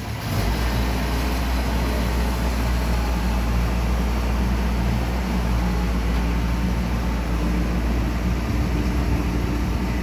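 Diesel engine of a Bimo crawler combine harvester running steadily close by as the machine drives past, coming up loud about half a second in.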